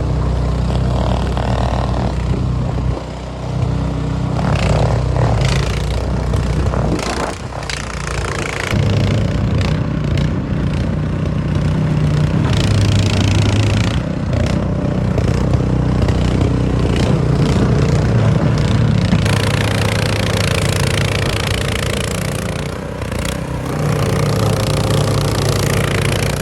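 Toro Power Clear 721E snow blower's 212cc four-stroke OHV engine running, its pitch shifting now and then, with a stronger rushing hiss for a few seconds about two-thirds of the way through.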